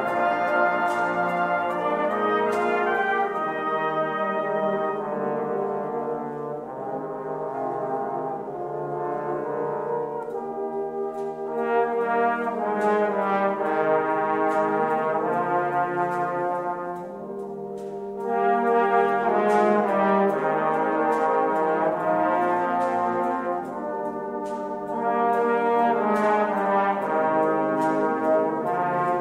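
A full brass band of cornets, tenor horns, baritones, euphoniums, trombones and tubas playing sustained chords. The band eases off briefly about 17 seconds in, then comes back louder.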